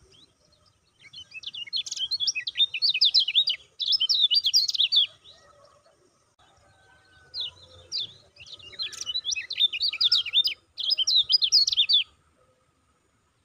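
Kecial kuning (white-eye) singing: two long runs of rapid, high, chattering chirps, each broken by a brief pause, starting about a second in and again about six and a half seconds in.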